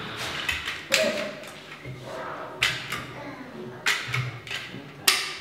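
Caulking gun being pumped: about four sharp clicks of its trigger and ratchet rod, roughly a second apart, with a few dull thuds between them.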